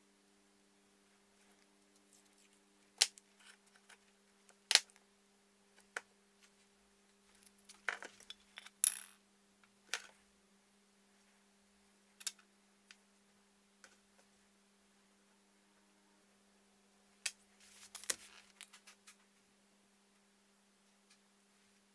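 Scattered sharp clicks and taps of a knife blade, tape and small tools being handled and set down on a workbench cutting mat, with a short scraping rustle about eight seconds in and another cluster of taps near eighteen seconds. A faint steady hum lies underneath.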